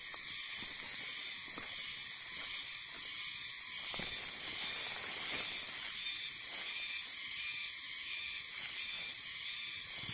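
Forest ambience: a steady high-pitched hiss with a few faint ticks.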